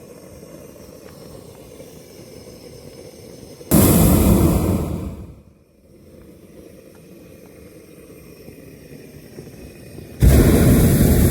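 Hot air balloon's propane burner firing in two blasts, each starting abruptly and tailing off over a second or so; the second begins near the end. Between the blasts there is only a quiet steady background hiss.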